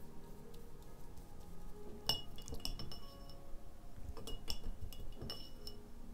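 Watercolour brush being rinsed in a glass water jar, clinking against the glass several times with a short ringing after some strikes, starting about two seconds in.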